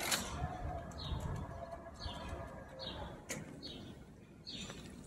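A small bird chirping over and over, one short chirp about every second, over a low background rumble. A sharp click sounds near the start and another about three seconds in.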